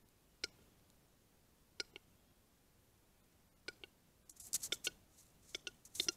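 Male western capercaillie's display song at the lek: sparse, faint clicks, some in quick pairs, then a faster run of clicks in the last two seconds.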